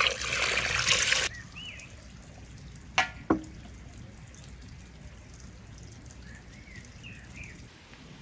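Water poured from a jug splashing onto raw meat chunks in a metal bowl, cutting off abruptly about a second in. Then two sharp knocks a third of a second apart about three seconds in, and a few short chirps over quiet background.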